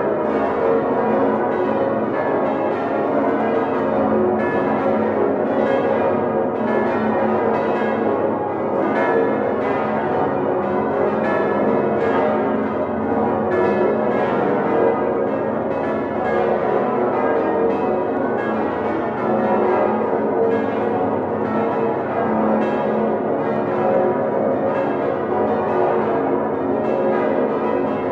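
Full peal of the Domtoren's swinging bronze church bells, hand-rung on ropes and wheels, all sounding together. Strike follows strike without a break, and the overlapping tones are loud and dense because they are heard from inside the bell chamber.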